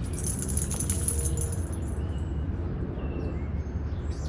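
Outdoor ambience with a steady low rumble, a crisp rustle in the first couple of seconds, and a few faint short chirps from small birds in the middle.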